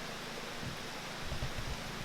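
Steady hiss of background noise with a few low thumps, the strongest a cluster about a second and a half in.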